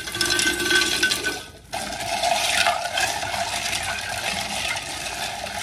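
Hibiscus water (agua de jamaica) swirling in a glass pitcher as it is stirred with a wooden spoon, ice clinking against the glass. The clinking is sharper in the first second and a half; after a short break it turns into a steady swish.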